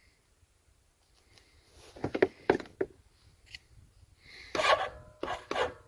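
Irregular clicks, knocks and metallic clinks of metal tools or parts being handled, starting about two seconds in, with a short ringing after some of the strikes.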